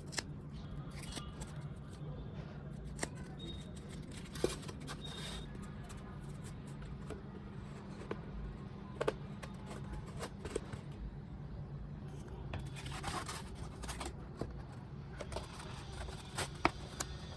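Light handling sounds: scattered sharp clicks and scraping, with a stretch of scratchy rubbing about thirteen seconds in, over a steady low hum.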